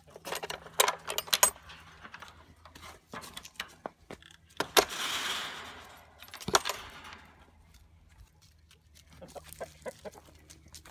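Metal latch hardware on a wooden gate rattling and clanking as it is worked open by hand. There is a run of sharp clicks in the first second and a half, then a loud clank about five seconds in followed by a brief rushing scrape, and another clank about a second and a half later.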